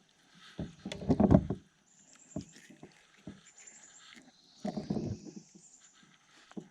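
Irregular knocks, bumps and rustling on a kayak as a fish is handled aboard, in two short clusters about a second in and about five seconds in, with faint scattered clicks between.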